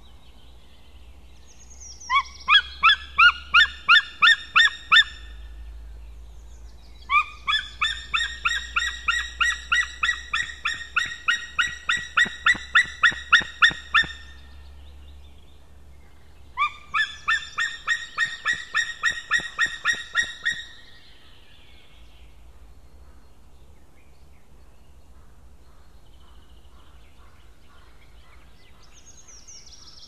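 White-tailed eagle calling in three long series of rapid repeated calls, about three notes a second, the middle series the longest. This is calling at two strange eagles near the nest.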